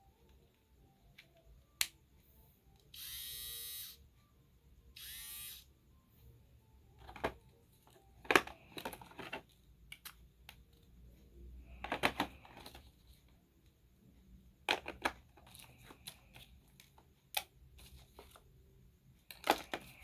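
Small electric body-hair trimmer switched on and buzzing briefly twice, each run about a second long, followed by scattered clicks and handling of the plastic device.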